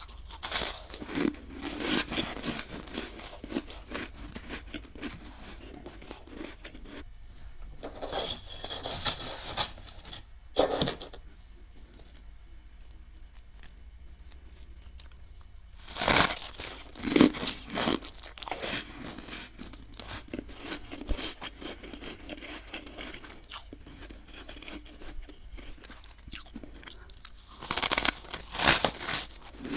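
Thick freezer frost crunching as a spoon scrapes and digs into it and chunks are broken off by hand, in irregular bursts with quieter gaps. The loudest bursts come a little past halfway and again near the end.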